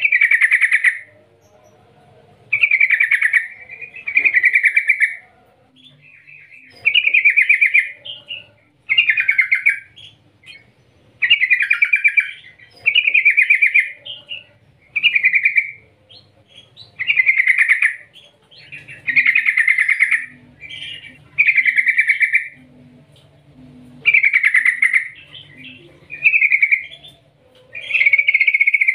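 Yellow-vented bulbul (trucukan) singing: short trilled phrases, each about a second long, repeated roughly every two seconds.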